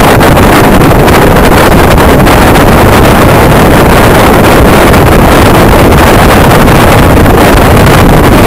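Strong wind blasting across the microphone: a loud, unbroken rushing rumble, heaviest in the low end, that overloads the recording.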